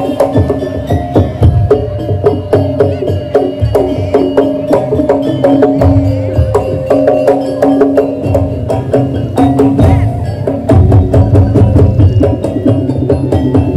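Madurese daul percussion ensemble playing: fast, dense strikes of wood-block-like percussion and drums under held pitched notes. Heavy low drum passages come and go, strongest in the second half.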